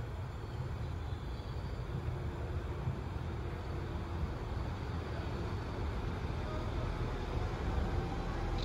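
A train at the station running with a steady low rumble and a faint hum, slowly getting a little louder.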